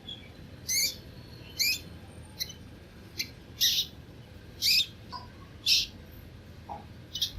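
Baby mice squeaking: short, very high-pitched squeaks, about one a second and irregularly spaced.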